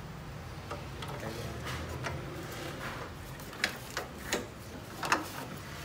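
A few sharp clicks and knocks, four of them in the second half, from the metal parts of a manual desktop paper guillotine being handled, over a low steady hum.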